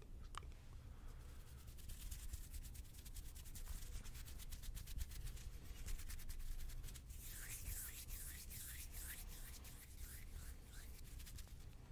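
Soft, close-up rubbing of hands with fine rapid crackles, growing brighter and hissier from about seven seconds in.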